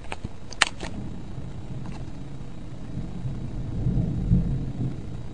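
Thunder rumbling low, swelling to its loudest about four seconds in, with a few sharp clicks in the first second.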